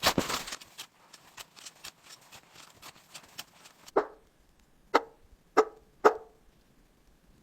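Four sharp strikes of a tool, each with a brief ringing tail, the first about four seconds in and the last three coming quicker, after a fading noisy rustle and faint clicks.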